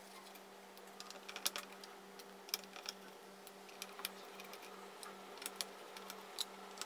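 Faint, irregular small clicks and ticks of a screwdriver working the screws out of a graphics card's heatsink assembly, over a steady low hum.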